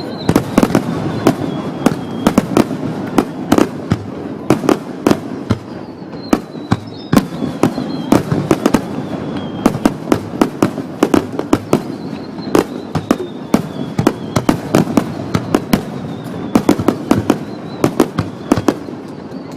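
Aerial fireworks going off in a rapid, continuous barrage: many sharp bangs and crackles a second over a steady rumble. A faint whistle falls in pitch several times. The loud blasts sound distorted through a digital camera's microphone.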